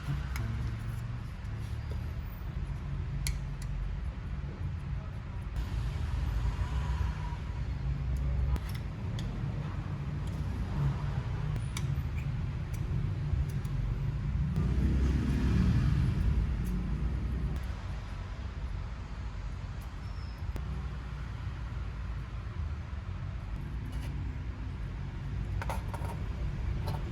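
Small workshop power tool running with a low, steady rumble that swells for a couple of seconds midway, with a few light clicks.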